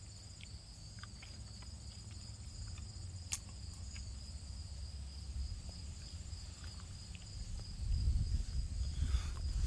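Insects in the grass chirring steadily, a continuous high-pitched trill with a fast pulse. There is a single sharp click about three seconds in, and a low rumble builds near the end.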